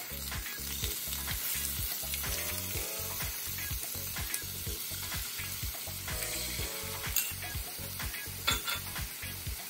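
Patties and beaten egg sizzling steadily in hot oil in a four-cup nonstick frying pan.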